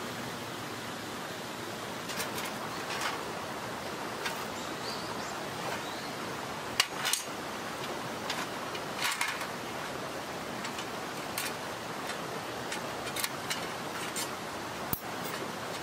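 Sheet-metal panels of a folding fire stand clinking and clicking as they are handled and slotted together, the sharpest clink about seven seconds in, over the steady rush of a mountain stream.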